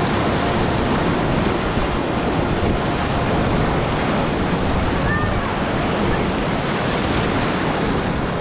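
Whitewater rapids of a river running at high water: a steady, loud rush of churning water, with some wind buffeting the microphone.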